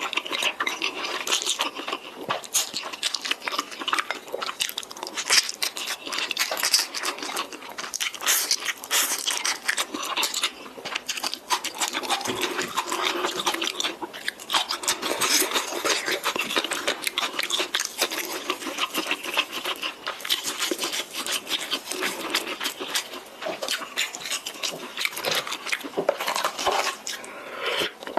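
Close-miked eating of spicy instant noodles: continuous wet chewing and mouth noises, a dense run of quick smacking clicks.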